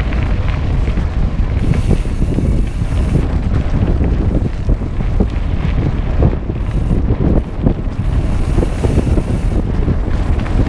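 Wind buffeting the microphone of a mountain bike riding a dirt road, over a steady low rumble with frequent small knocks and rattles from the tyres and bike on the rough surface.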